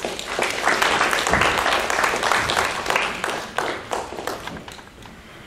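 Audience applauding, loudest over the first three or four seconds and fading away near the end.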